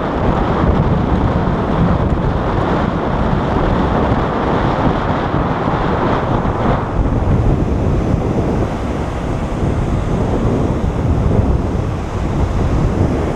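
Steady wind noise buffeting a GoPro Hero 3+ Black's microphone, heavy and rumbling, with surf breaking below mixed in.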